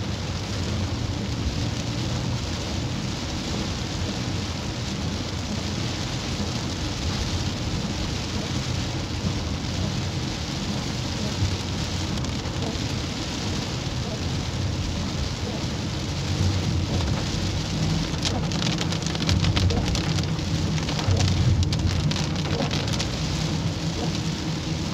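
Heavy rain falling on a car's roof and windshield, heard from inside the cabin, over the low hum of the car driving on a wet road. The rain grows louder, with more separate drop hits, about two-thirds of the way through.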